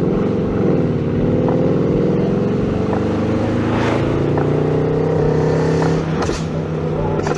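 Tuned Mercedes-Benz car's engine pulling under hard acceleration, heard from inside the cabin. Its note dips briefly about half a second in, then climbs steadily for several seconds and breaks off about six seconds in.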